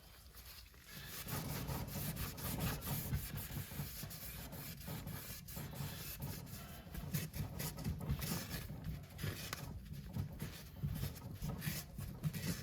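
Irregular rubbing and scrubbing strokes as a rag wipes brake cleaner off a freshly reassembled turbocharger.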